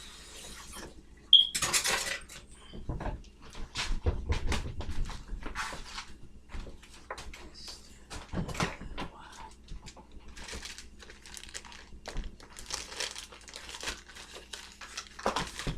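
Dishes and utensils clattering, many separate knocks and clinks, with a louder rush of noise just over a second in.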